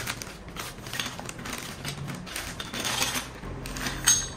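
Handling noises from an exhaust pipe and its packaging being handled on a table: irregular light clicks, knocks and rustles, with one sharper click near the end.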